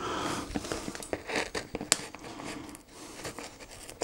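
Scissors cutting and scraping at a cardboard box, with rustling and small clicks and one sharp click about two seconds in.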